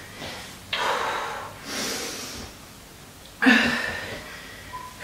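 A woman breathing hard during a bodyweight exercise: three forceful breaths about a second or more apart, the last, some three and a half seconds in, the loudest.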